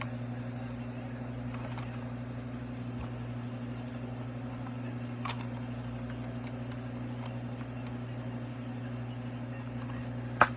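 Steady low electric hum of the Gemmy Snoring Santa's motor running. A light click comes about halfway through and a sharp click near the end.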